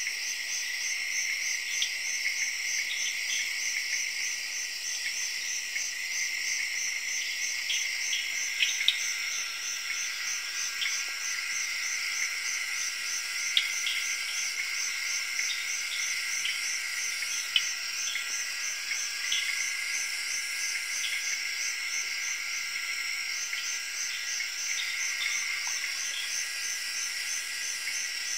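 Night chorus of tropical rainforest insects, crickets among them: several steady high-pitched trills layered together, one with a fast even pulse, with scattered short chirps and clicks on top.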